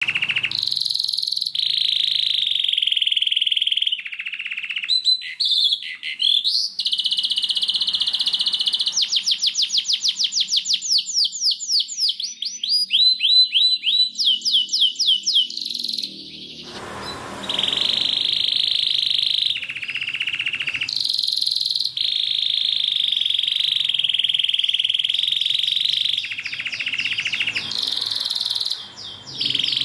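White domestic canary singing a continuous song of rolling trills, switching from one trill to the next every few seconds, with a passage of quick repeated rising notes and a short lull a little past halfway.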